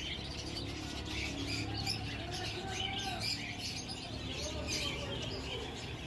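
A brood of Alexandrine parakeet chicks begging for food with many quick, high chirps packed close together throughout, as they are hand-fed from a syringe.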